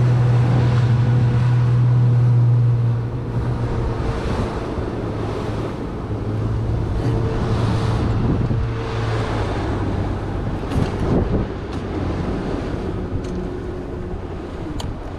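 Motorboat engine running steadily under wind buffeting the microphone and water rushing past the hull; the engine drops in level about three seconds in.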